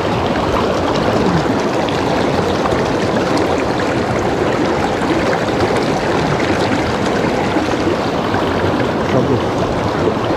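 Mountain river water rushing steadily over stones.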